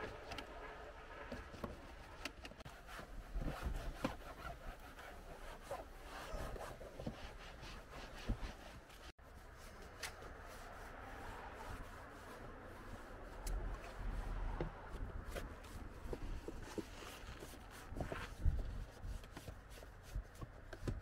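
Cloth wiping and rubbing over car interior trim: the door panel, then the plastic sill and seat-side trim, with scattered small knocks and clicks as the hand works.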